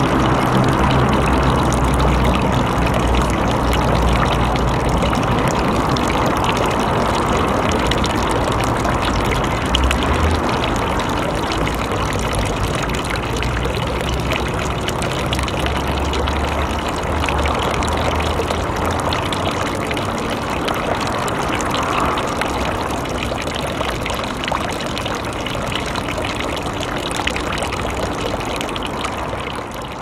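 A thin stream of water falls from the spout of a temple hand-washing basin (chōzuya) and splashes steadily into the water below. Behind it runs a constant city traffic noise, whose low rumble swells near the start and again about halfway through.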